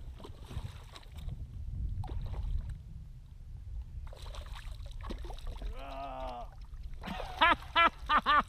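Wind rumbling on the microphone over water splashing as a hooked redfish thrashes beside a kayak and is scooped into a landing net. Near the end, a quick run of five or six loud, short pitched calls.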